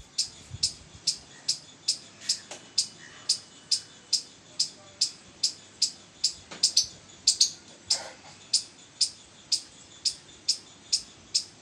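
Palm squirrel giving its sharp, repeated chip call, about two calls a second in a steady run, with a few calls coming closer together around the middle.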